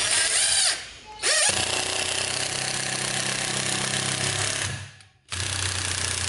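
Ryobi cordless impact driver running under load, its impact mechanism hammering as it drives a screw into wood. It runs in three stretches, broken by short pauses about a second in and about five seconds in.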